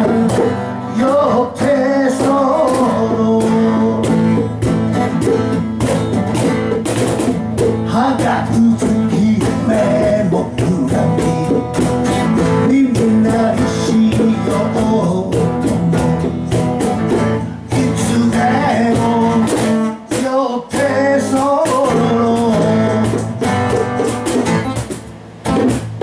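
A man playing an acoustic guitar live, strumming a blues-tinged song, with his singing voice heard at times over the guitar.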